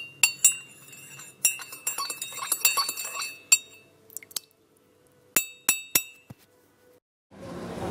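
A spoon clinking against a cup: a run of ringing clinks, then three sharp taps about a third of a second apart just after five seconds. A steady wash of background noise comes in near the end.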